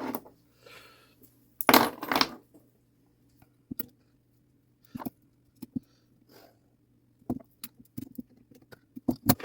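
Small metal parts of a 1960s mantel clock movement clicking and clinking as they are handled and fitted together, in scattered short ticks with a louder clatter about two seconds in.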